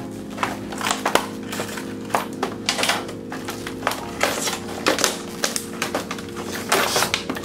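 Stiff plastic blister packaging and its cardboard backing being pried and torn apart by hand, giving irregular crackles and snaps.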